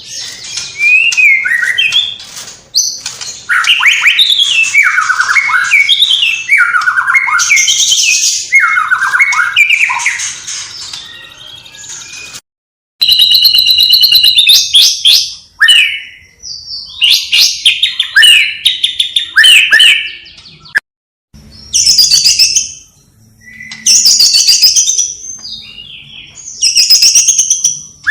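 White-rumped shama (murai batu) singing loudly: varied whistled phrases sliding up and down, mixed with fast, high chattering and chirps. The song cuts out abruptly twice, briefly, where the recording is spliced.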